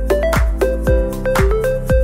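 Upbeat electronic background music with a steady beat of low kick drums, about two a second, under a melody of short notes and sharp clap-like hits.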